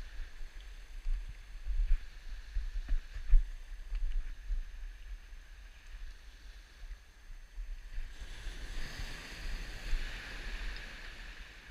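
Wind gusting on the microphone in uneven low rumbles, over the wash of sea surf on a rocky shore that swells into a louder hiss about eight seconds in.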